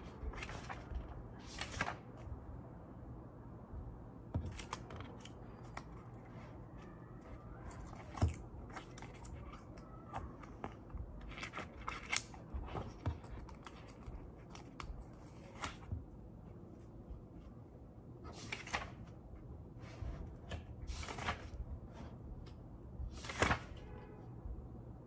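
Paper handling: book and magazine pages being turned and rustled, and sticky-note tabs peeled off and pressed onto a page. It comes as scattered short, crisp rustles with a few sharper ones.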